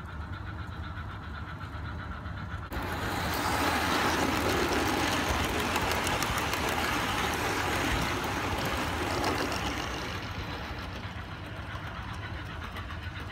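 Miniature-railway train rumbling past close by on its rails, coming in suddenly about three seconds in, and fading after about ten seconds as it runs away along the track.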